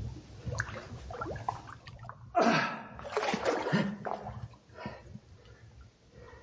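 Boots squelching and sloshing through deep, soft mud and water in irregular wet sucks and splashes, loudest a little past halfway; the mud sinks underfoot like quicksand.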